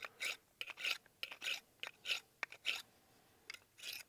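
Steel knife blade being sharpened on a flat river rock used as a makeshift whetstone: a dozen or so quick scraping strokes, about three a second.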